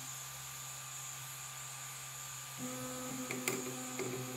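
Steady hum and high whine from the cooling fans of an E3D Hemera extruder. About two and a half seconds in, the Hemera's extruder stepper motor starts a steady low whine as it feeds filament, with several sharp clicks over the next second or so.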